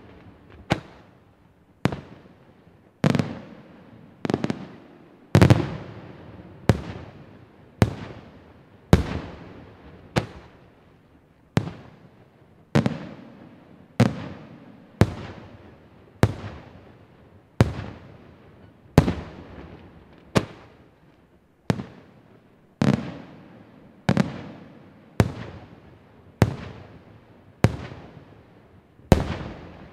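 Aerial firework shells bursting in a steady sequence, about one loud bang a second, each followed by a rolling echo that dies away before the next.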